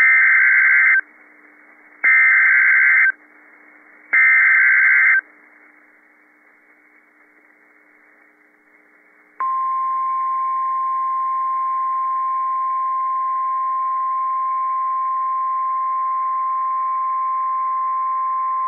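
NOAA Weather Radio Emergency Alert System signal announcing a tornado warning: three one-second bursts of SAME digital header tones about a second apart, then after a pause of about four seconds the steady 1050 Hz weather radio alarm tone, held for about nine seconds.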